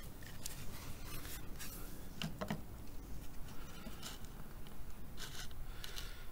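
A series of short scrapes and rubs from the plastic headlight and hot-staple welder being handled, one with a duller knock about two seconds in, over a low steady hum.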